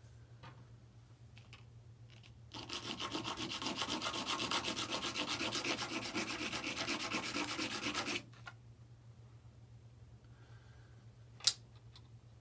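Rapid, even back-and-forth rubbing on a surface, starting a couple of seconds in and stopping suddenly about five and a half seconds later. A single sharp click comes near the end.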